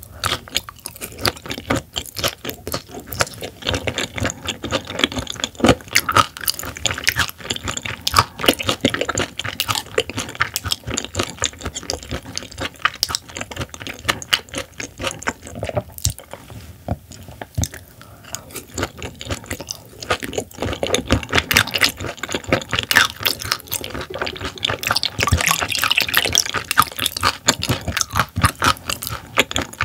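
Close-miked wet chewing of raw silver pomfret sashimi: a dense, uneven run of soft moist smacking clicks, a little quieter around the middle.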